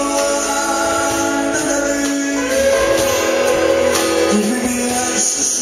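Live country band playing: a male lead vocal over strummed acoustic guitars, electric guitar, bass and drums with cymbals.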